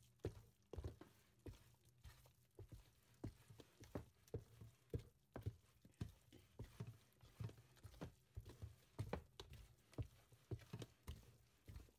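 Wooden spoon beating thick teff and barley flour batter in a plastic tub: faint, irregular wet slaps and knocks, a few each second.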